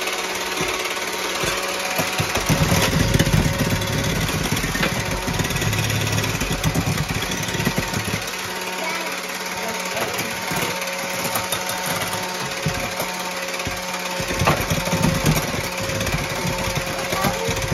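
An engine running steadily, with a constant low hum under a noisy rush.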